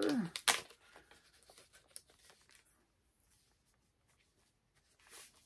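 Packaging around a comic book being handled and opened: a burst of crinkling and crackling in the first second, then a few faint rustles and ticks over the next couple of seconds.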